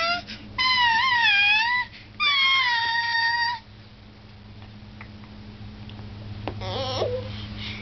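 Baby squealing: three long, high-pitched gliding cries in the first three and a half seconds, then a short, lower babble near the end.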